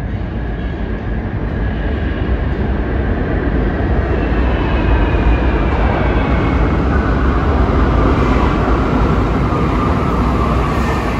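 New York City Subway train running, a heavy steady rumble with a faint whine that falls slowly in pitch from about four seconds in.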